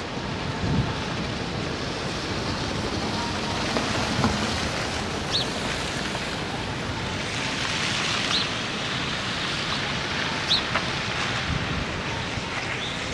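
A minivan driving past on a snow-covered street, its tyres swishing through the slush, the sound swelling and fading in the middle. Behind it runs a steady hiss of wind, with a few brief high chirps.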